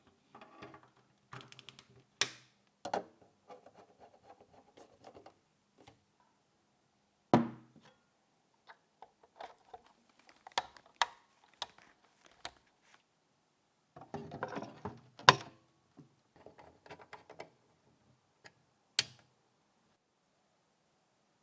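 Hands assembling small computer parts into a compact ITX PC case: scattered clicks, taps and short rattles of metal and plastic being handled and fitted, broken by four sharper knocks, the loudest a little past halfway.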